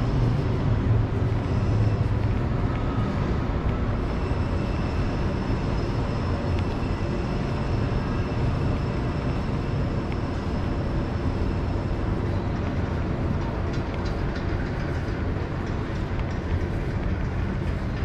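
Steady low rumble of outdoor city ambience with distant vehicles, and faint high whining tones through the middle.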